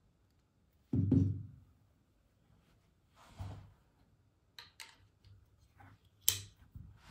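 Gevarm .22 LR carbine being put back together by hand, its metal receiver fitted into the wooden stock: a dull thump about a second in, a softer knock near the middle, then a few sharp metallic clicks, the loudest near the end.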